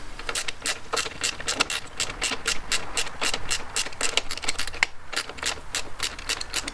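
Small ratcheting wrench clicking rapidly and irregularly, several clicks a second, as it turns a bolt into a stiff friction nut.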